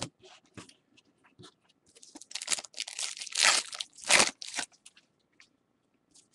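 Foil wrapper of a 2013 Bowman baseball card pack being torn open and crinkled. A few light clicks and rustles come first, then from about two seconds in a run of loud crackling tears that stops just before five seconds.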